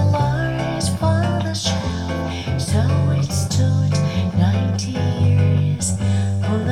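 A song with guitar, a strong bass line and regular percussion hits, played back through B&W 707S2 bookshelf speakers driven by a LUXMAN L-590AXII amplifier from a LUXMAN DA-06 DAC.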